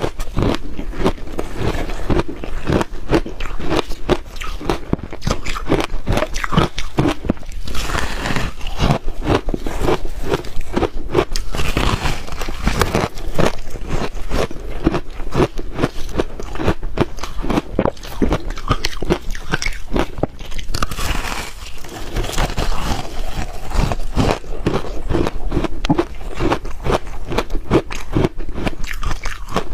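Close-miked biting and chewing of hard frozen ice chunks: a continuous run of crisp crunches, several a second.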